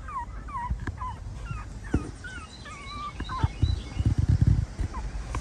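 Pomeranian puppies whimpering in a run of short, high, falling squeaks, several a second, which stop about three and a half seconds in. Low muffled thumps and rumble follow around four seconds in.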